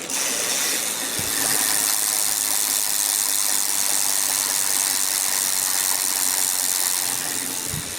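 BMX rear hub freewheeling as the wheel spins, its ratchet pawls clicking so fast that they merge into a steady buzz.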